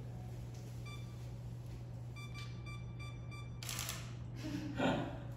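A camera's self-timer beeping, a short high beep about once a second that then speeds into rapid beeps, followed by the shutter firing just before four seconds in.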